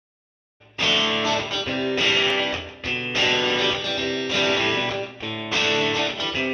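Background music led by guitar, starting after a short silence about a second in, with a strummed phrase repeating roughly every second.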